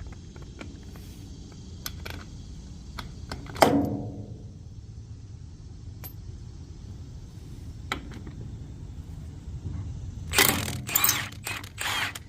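Metal clinks and a single loud, ringing metal clank about four seconds in, then three short bursts of an impact wrench near the end as it spins 22 mm wedge nuts off a five-fastener spider wheel hub.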